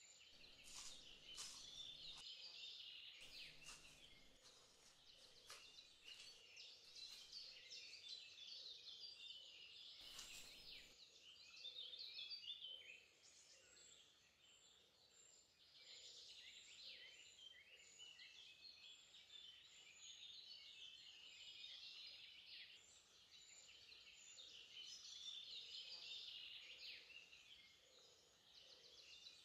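Faint outdoor ambience of many small birds calling, with short high-pitched chirps overlapping throughout.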